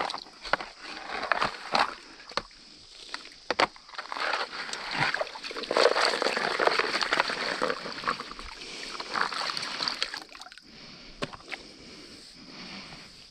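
Water splashing and sloshing as a plastic classifier sieve over a gold pan is shaken and swirled in shallow creek water, washing a gravel sample through the screen. The splashing is heaviest through the middle and dies down near the end.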